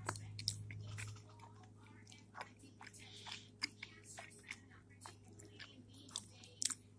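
Close-up chewing and crunching of a puffed rice cake spread with peanut butter and jelly, in irregular crisp crackles. A low hum sits under it during the first second.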